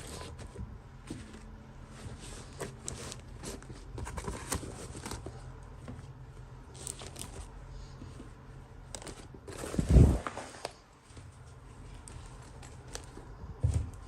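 Hands handling toy packaging and small plastic pieces: scattered clicks, rustles and scrapes, with a loud thump about ten seconds in and a smaller one near the end.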